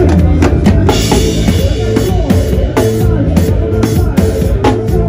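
Live band playing a praise groove with the drum kit close to the microphone: kick drum, snare and rimshot hits over a bass line, with a cymbal crash about a second in.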